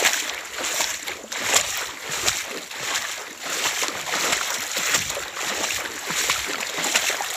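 Footsteps wading through shallow muddy floodwater on a dirt road, a splash and slosh with each step in a steady walking rhythm.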